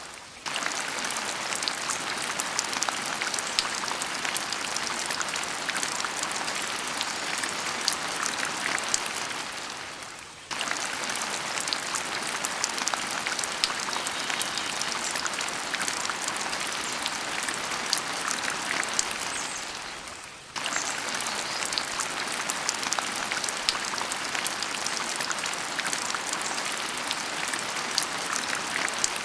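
Rain-like steady hiss dotted with many fine ticks, like drops pattering on a surface. It fades down and cuts back in abruptly twice, about ten and twenty seconds in.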